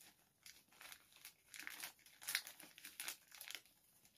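Clear plastic wrapping crinkling as a pair of sunglasses is slid back into it, in faint irregular crackles that are loudest a little past the middle.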